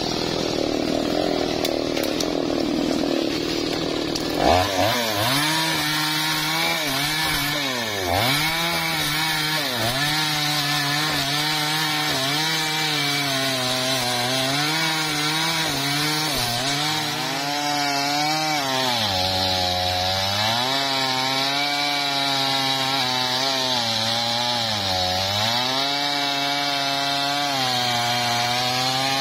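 Small two-stroke chainsaw at full throttle cutting through a large sengon (albizia) log. Its high engine note dips again and again as the saw bogs under load in the cut, then picks back up.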